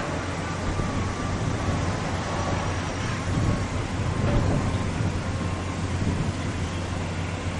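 Steady low rumble of outdoor background noise, swelling briefly about three and a half seconds in, with a faint thin tone in the first half.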